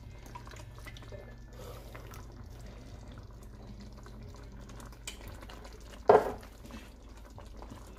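Tomato juice poured from a can into a pot of chili base, a faint trickling and dripping of liquid. One sharp knock about six seconds in.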